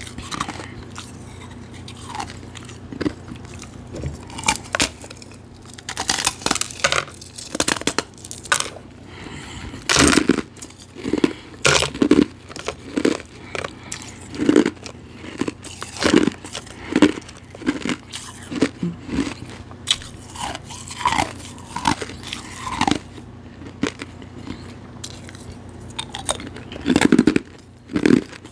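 Refrozen powdery ice being bitten and chewed: a run of sharp, crisp crunches, roughly one to two a second.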